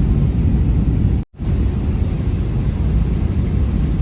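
Airliner cabin noise: a steady low rumble of engines and airflow heard from inside the cabin. It cuts out abruptly for an instant about a second in, then resumes.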